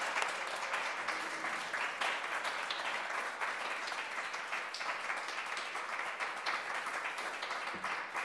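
A congregation applauding: a steady round of many hands clapping that eases off slightly near the end.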